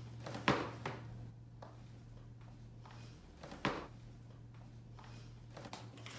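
Stroller parts being handled: two sharp knocks, about half a second in and near four seconds, with a few lighter clicks, over a steady low hum.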